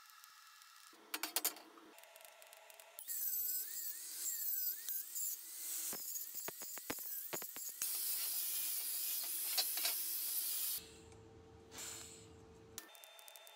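Angle grinder with a flap disc grinding the edge of a steel plate, loud and steady with its whine wavering as the load changes. A few sharp clicks come before it starts, and a short, different sound with a low hum follows it near the end.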